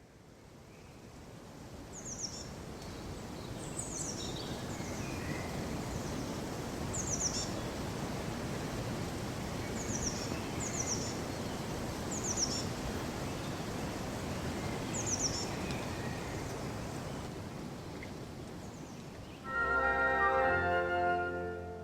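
Birds chirping, short high descending calls every two or three seconds, over a steady rushing outdoor background that fades in at the start. Near the end, music comes in loudly with sustained chords.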